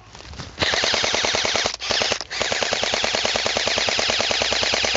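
Airsoft electric rifle (AEG), a Specna Arms EDGE SA-E06, firing long full-auto bursts: a fast, even mechanical rattle of the gearbox cycling. It starts just over half a second in and breaks off briefly twice around the two-second mark before running on.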